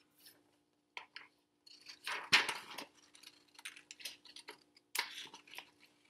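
Two pairs of scissors snipping through sheets of paper, with the paper rustling as it is handled and turned; irregular crisp snips, the loudest crinkle a little over two seconds in.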